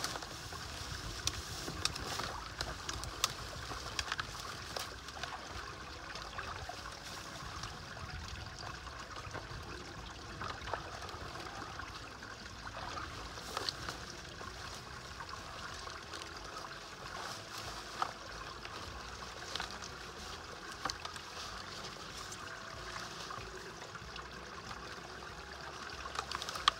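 Water trickling and dripping as a wet beaver is hauled out of a pond onto matted dry grass. Dry grass rustles and crackles throughout, with scattered sharp clicks.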